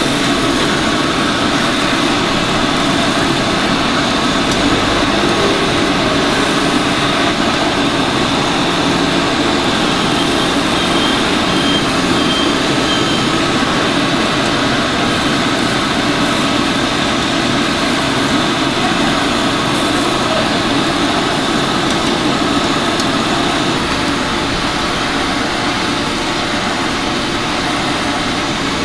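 A loud, steady mechanical drone with a faint hum, unchanging throughout.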